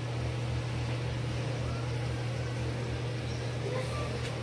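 Beets confiting in oil in a foil pan inside a hot oven: the oil bubbling with a faint crackle over a steady low hum from the running oven.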